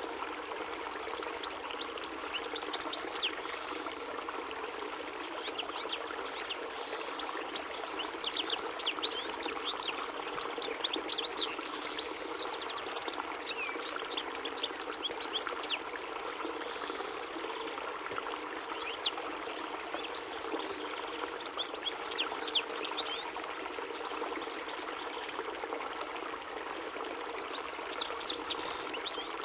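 European goldfinch singing: several phrases of quick, high twittering notes a few seconds apart, over a steady rushing background noise.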